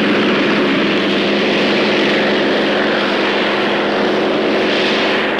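T-28 fighter-bomber's radial engine and propeller running steadily at high power as the plane rolls along the runway.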